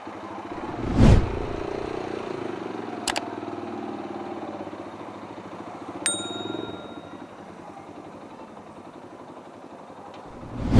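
Motorcycle engine running, loudest about a second in and fading after, with a bright ding about six seconds in.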